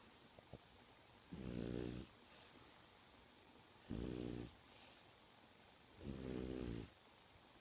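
French bulldog snoring in its sleep: three rasping snores about two seconds apart, each lasting well under a second, with quiet breathing between them.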